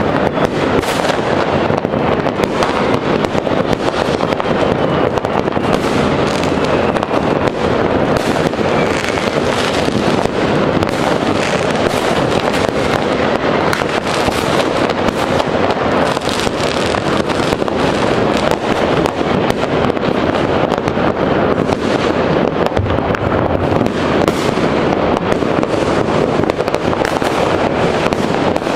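Fireworks and firecrackers going off all over a city at once: a dense, unbroken crackle of countless overlapping bangs that merge into a steady din.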